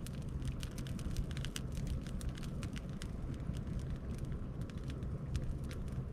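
Campfire of gathered branches and driftwood crackling, with many sharp, irregular pops over a low steady rumble.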